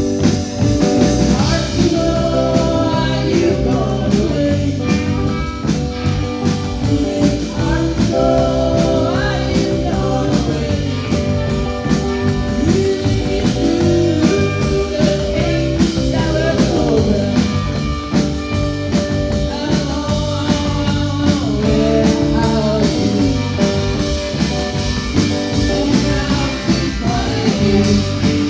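Live garage rock band playing: electric guitars and drums, with a woman singing lead over them, heard loud from the front of the crowd.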